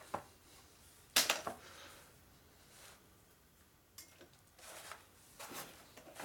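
A single sharp knock about a second in, with a brief ring-out, followed by a few faint clicks and handling noises.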